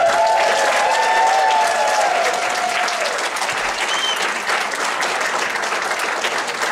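Audience applauding steadily, with a few held cheering voices over the first three seconds.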